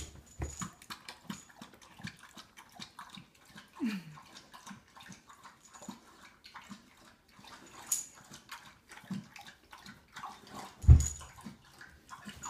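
A pit bull lapping from its bowl: light, irregular wet clicks and slurps. A heavy thump near the end is the loudest sound.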